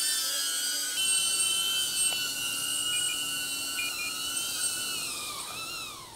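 DJI Avata FPV drone's ducted propellers whining at a steady speed while the drone sits on the ground. Near the end they spin down, the whine falling in pitch and fading out.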